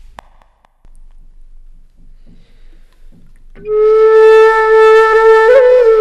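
Background film music: after a few quiet seconds a flute comes in about three and a half seconds in and holds one long note, bending slightly near the end.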